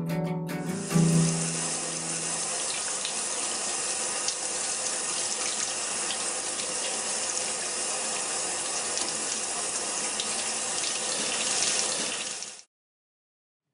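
Water running steadily, like a tap at full flow. It starts about a second in as a guitar chord rings out, and cuts off abruptly near the end.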